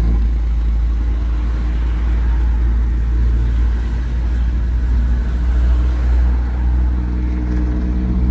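Old truck's diesel engine running with a steady low exhaust note.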